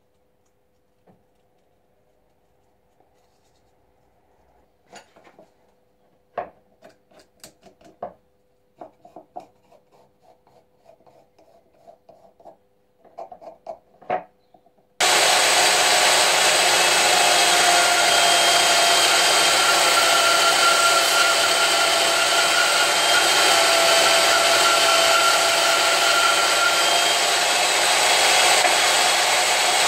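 Scattered light scratching and small knocks of pencil and hands working on a ram's horn, then about halfway through a band saw cuts in abruptly and runs steadily, with a constant motor whine.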